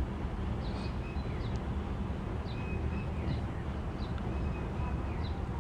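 Steady background noise with a low hum, and faint short bird chirps now and then.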